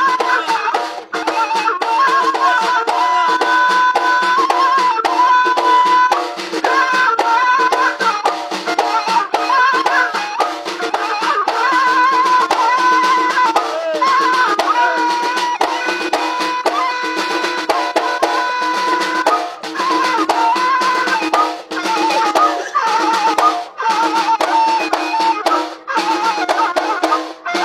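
Traditional music played live on large hand-held frame drums, beaten in a quick, dense rhythm. Above the drums runs a high melody line with long held notes and ornaments, over a steady lower drone.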